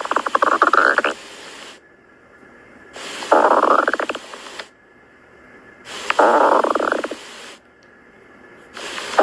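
Stomach growling sound effect: a gurgling rumble that starts and stops abruptly and repeats about every three seconds, each growl lasting about two and a half seconds.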